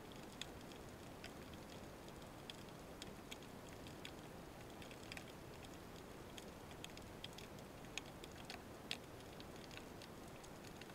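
Underwater ambience heard through a camera housing: a faint steady hiss with scattered sharp clicks and crackles at irregular intervals, a couple of louder clicks near the end.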